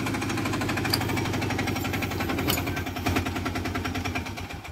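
Three-wheeler auto-rickshaw goods carrier's engine idling with a fast, even chugging that fades near the end.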